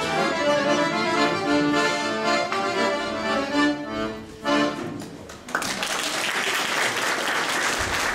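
Accordion playing the closing bars of a tune and ending on a final chord about five seconds in, followed straight after by audience applause.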